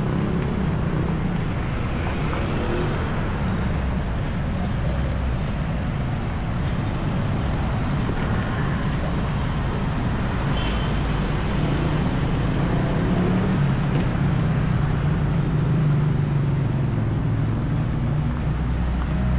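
Road traffic: cars, vans, trucks and motorcycles passing on a busy road. A low engine hum grows louder in the second half.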